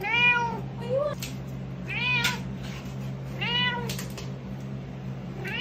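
Domestic cat meowing repeatedly: about four drawn-out meows that rise and fall in pitch, roughly a second and a half apart, with a short upward chirp about a second in. A steady low hum sits underneath.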